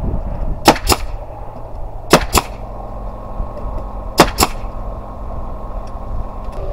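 Nail gun firing into timber three times, about two seconds apart, each shot a sharp double crack.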